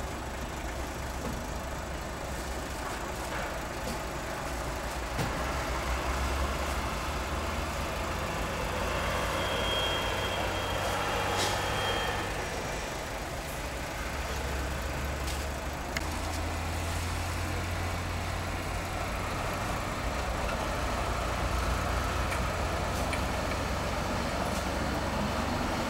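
Heavy diesel trucks running with a steady low engine hum, with a thin high squeal lasting about two seconds near the middle.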